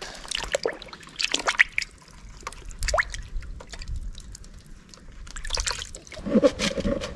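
Water splashing and sloshing in a plastic tub as a gutted mackerel is rinsed by hand, then water dripping and trickling off the fish as it is lifted out near the end.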